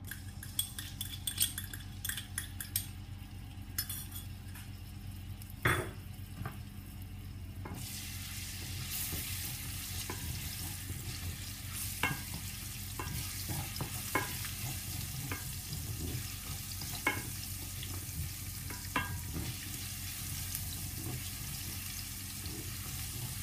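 Minced garlic frying in hot olive oil in a stainless steel sauté pan, stirred with a wooden spatula. Light clicks and scrapes at first, then a steady sizzle from about eight seconds in, with the spatula tapping the pan now and then.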